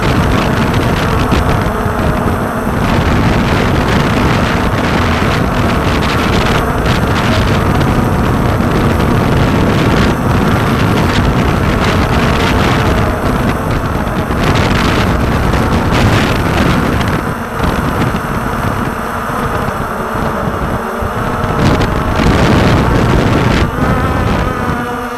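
Walkera TALI H500 hexacopter's electric motors and propellers buzzing steadily in flight, heard through its onboard camera's microphone and mixed with heavy wind buffeting.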